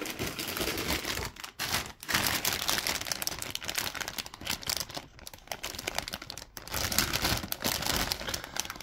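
Clear plastic bags holding plastic model-kit sprues crinkling as they are handled, a continuous crackle with a few brief pauses.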